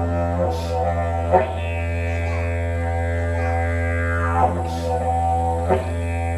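Didgeridoo playing one continuous low drone, its overtones sweeping up and down as the mouth and tongue shape the sound. It is played with circular breathing, so the drone never breaks, and it has three short sharp accents: about a second in, and twice near the end.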